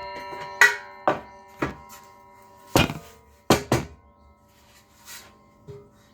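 Miter saw winding down just after cutting through an aluminum railing post, then several sharp knocks of the hollow aluminum post and offcut being handled, each leaving a brief metallic ring.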